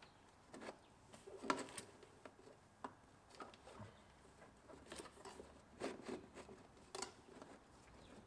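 Faint, scattered clicks, taps and rustles of the cold air intake's mass airflow sensor, intake boot and heat shield being handled and pushed into place, at irregular moments.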